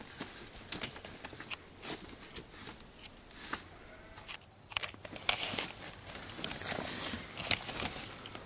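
Irregular crackling and snapping of twigs and leaf litter in bush undergrowth, with scattered sharp clicks that grow busier about halfway through.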